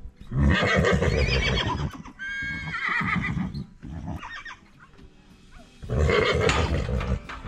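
A horse whinnying loudly three times, each call a second or so long with a wavering, sliding pitch, over quiet background music.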